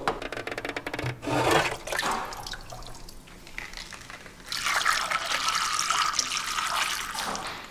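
Liquid sloshing as a metal pitcher scoops from a plastic drum, then a steady pour of dark sulfur solution through a funnel into a plastic jerrycan, from about four and a half seconds in until it tails off near the end.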